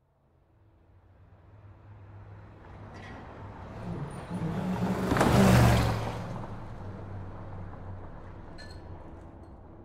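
Road traffic: a motor vehicle passes close by on the road alongside, its engine and tyre noise rising to a loud peak about five and a half seconds in, then fading back to steady traffic noise.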